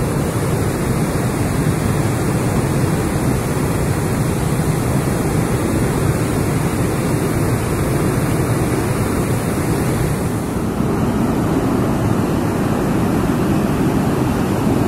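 Large volume of canal water cascading down a stepped spillway into a reservoir: a loud, steady rush of falling, churning water. Its high hiss eases a little about two-thirds of the way through.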